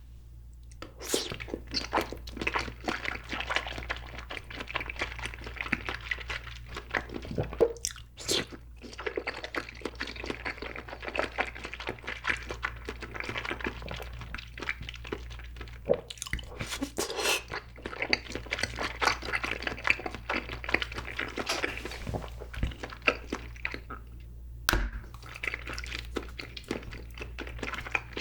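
Close-miked mouth sounds of chewing grape-flavoured jelly: dense, irregular wet clicks and squelches, with short pauses about eight seconds in and a few seconds before the end.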